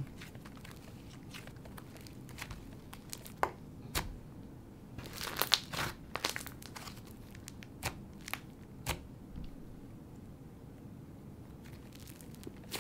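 Hybrid butter and cloud-cream slime being stretched, folded and squeezed by hand, giving faint sizzly crackles and soft pops at irregular intervals, with a denser run of them about five to six seconds in.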